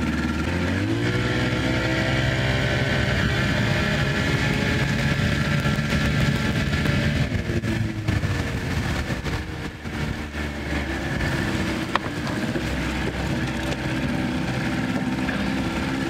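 Small boat's outboard motor speeding up about a second in and running steadily under way, then throttling back to a lower pitch around seven to eight seconds in, with the wash of the hull through the water. A single sharp click near the twelve-second mark.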